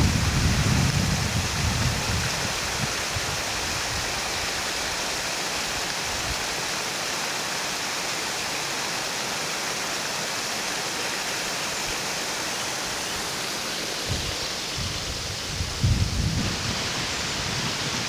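Water pouring and splashing steadily down a stepped rock cascade into a pool, a continuous rushing hiss. Low rumbles of wind on the microphone come in at the start and again near the end.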